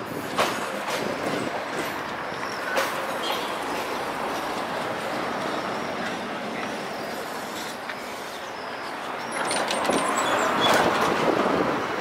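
Tatra KT4 articulated tram running along its track and drawing up close, a steady rumble with a few sharp clicks from the wheels, growing louder about ten seconds in as it arrives alongside.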